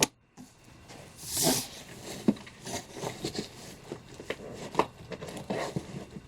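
Comic books being handled: a longer paper rustle about a second in, then short, irregular rustles and light taps of paper and plastic sleeves.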